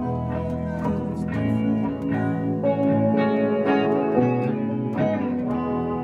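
Small rock band playing live, with electric guitars and a keyboard sounding together over sustained chords that change every second or so.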